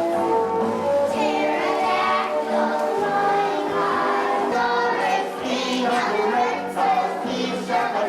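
A group of voices singing a song together, with held notes that move from pitch to pitch.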